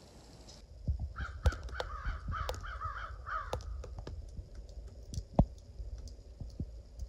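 A crow cawing, a quick run of about eight harsh calls lasting a couple of seconds, over scattered sharp clicks and taps, two of them loud.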